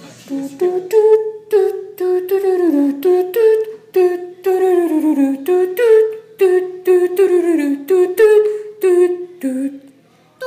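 A wordless melody of short pitched notes, many sliding downward, hummed in a steady rhythm of repeated phrases; it stops shortly before the end.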